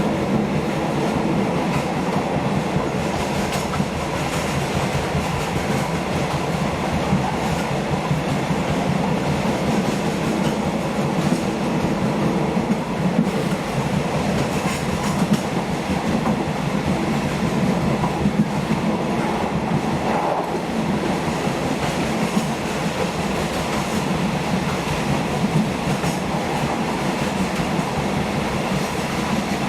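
Thai passenger train running along the line: steady wheel-on-rail rumble with irregular clicks and knocks from the track.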